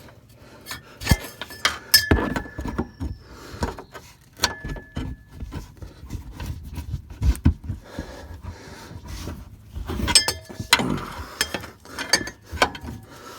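Steel pry bar clinking and knocking against a Ford F-250 front shock absorber and its mount while levering the shock off its upper mounting shaft, with scattered sharp metal knocks, a few ringing briefly.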